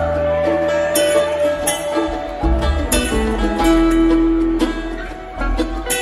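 Live bluegrass band playing an instrumental jam: acoustic guitars picking over upright bass, with no singing.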